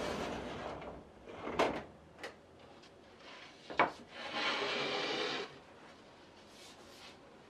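A wide, shallow plan-chest drawer slides open and comes to a stop, followed by a few sharp knocks. Then comes about a second of rubbing and sliding as a large flat sheet is drawn out of the drawer.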